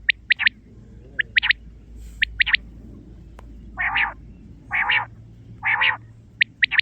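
Quail calling: short, high, quick notes in groups of two or three, repeated about every second, with three longer, rougher calls in the middle.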